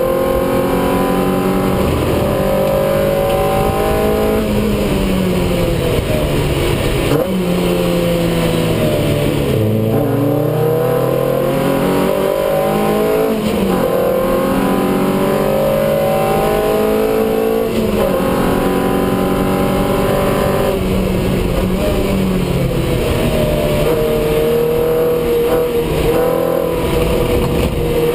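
Lotus race car engine at full race pace, heard from inside the cockpit. The note climbs steadily under acceleration and steps down at each gear change. It falls away sharply about seven seconds in as the car slows for a corner, then climbs again.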